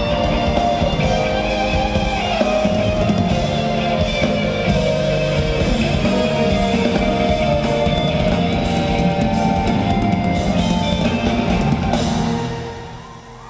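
Loud live concert music: an instrumental band passage with a steady beat and no singing, dying away near the end.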